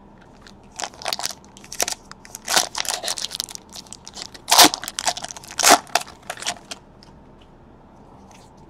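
Foil trading-card pack being torn open and crinkled in the hands: a run of sharp crackles and rips starting about a second in and stopping a little before seven seconds, loudest around the middle.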